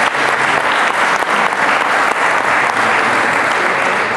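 An audience applauding: steady, dense clapping of many hands.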